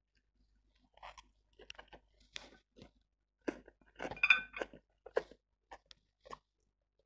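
Slurping and chewing a mouthful of black bean sauce noodles, in short separate mouth noises. The loudest slurp comes about four seconds in.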